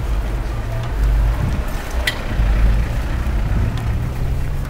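Wind rumbling over the microphone of a camera on a moving bicycle, with a single sharp click about two seconds in.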